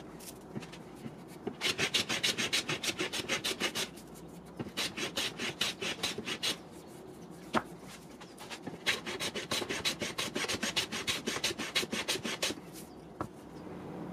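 Hand plane shaving along the edge of a board held in a bench vise, in quick repeated strokes, several a second, in three runs with short pauses between.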